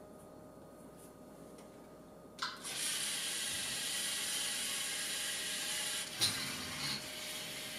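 LEGO Mindstorms EV3 drawing robot's motors start about two and a half seconds in and run steadily, a whirring of plastic gears as it drives across the paper, with a sharp click a little after six seconds.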